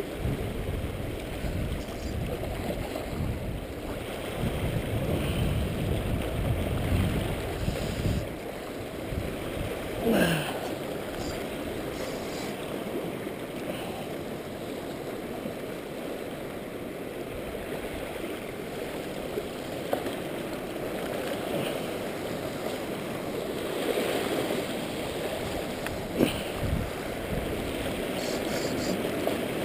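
Seawater washing and splashing over shoreline rocks, with gusts of low rumble on the microphone in the first several seconds. A single brief falling whistle sounds about ten seconds in.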